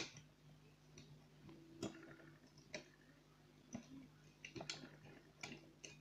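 Light metallic clicks of a lever pick and tension tool in the keyhole of a Union 3-lever mortice lock: about seven sharp clicks at uneven intervals, the first the loudest. The pick is jammed in the opened lock and is being worked to free it.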